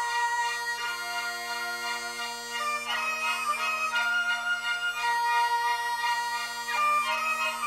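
Great Highland bagpipes playing a melody over their steady, unbroken drones.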